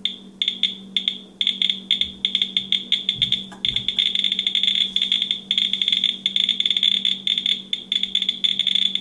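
Speaker clicks of a WB Johnson GSM-500 Geiger counter with a pancake probe. A few separate clicks at first; the rate climbs quickly into a dense, rapid chatter from about three and a half seconds in, as the cesium-137 spark gap tube rests on the probe, reading about 1,000 counts per minute.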